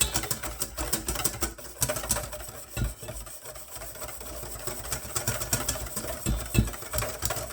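Whisk beating egg yolks in a bowl, with quick repeated scraping and clicking against the bowl, while hot cream is slowly added to temper the eggs.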